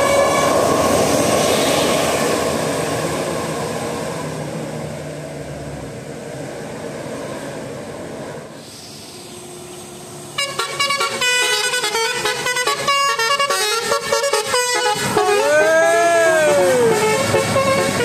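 A bus passing close on a wet road, its engine and tyre noise fading away over the first several seconds. From about ten seconds in, a bus's multi-tone telolet horn plays a quick stepping melody, then several tones that rise and fall in pitch near the end.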